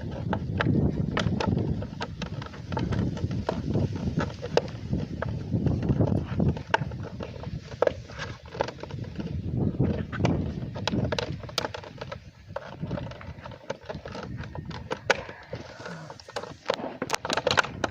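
Irregular clicks and knocks of hard plastic parts being handled and fitted while a Toyota Tacoma's side-mirror housing is reassembled.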